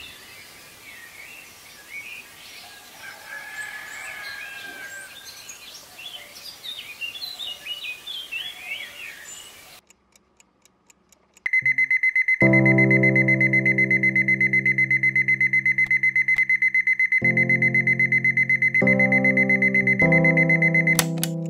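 Birds chirping for about the first ten seconds. Then, after a moment of faint clock ticking, an alarm clock starts ringing, one high rapid ring held steady for about nine seconds, and it is cut off suddenly about 21 seconds in as a hand reaches to stop it.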